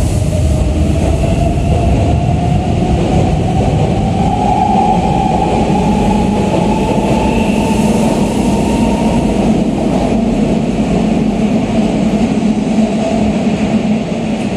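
Keisei second-generation AE-series Skyliner electric train pulling away, its traction motors whining in a tone that rises steadily for about nine seconds as it gathers speed, then levels off, over a steady rumble of the cars on the rails.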